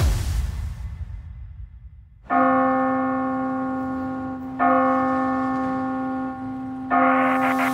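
Backing music dies away to a low rumble, then a deep church-style bell tolls three times, about two and a half seconds apart, each stroke ringing on until the next.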